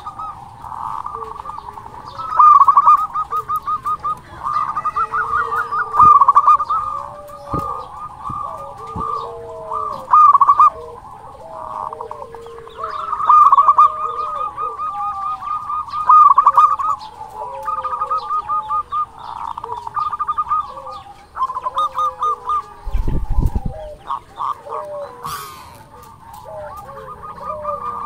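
Zebra doves (perkutut) cooing: loud bursts of fast, staccato trilled coos repeat every few seconds, with lower, sliding coo notes between them. A brief low thump about 23 seconds in.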